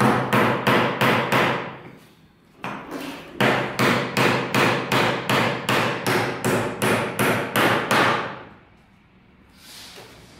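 Hammer driving nails into the timber base of a plywood column formwork box: a quick run of blows, a short pause about two seconds in, then a longer steady run of about three blows a second that stops about eight seconds in.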